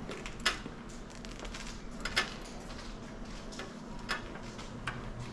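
Clothes hangers sliding and clicking along a metal clothing rack as garments are pushed aside: a few sharp clicks, two of them louder.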